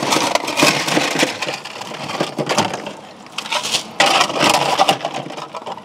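Ice cubes clattering and rattling as they are scooped out of an ice maker's storage bin into a plastic bag, in two bouts: a long one at the start and a shorter one about four seconds in.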